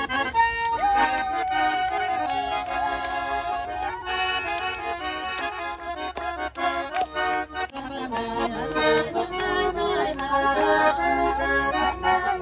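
A Russian garmon, a small button accordion, playing a folk tune, with held reed chords and a moving melody.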